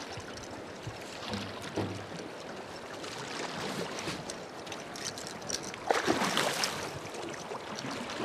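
River water rushing and lapping around a drift boat, with scattered knocks and a louder burst of noise about six seconds in.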